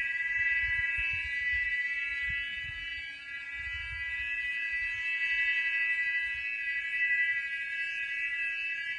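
A steady, horn-like metallic drone of several high tones sounding together without a break, from an unidentified source. A low, uneven rumble runs beneath it.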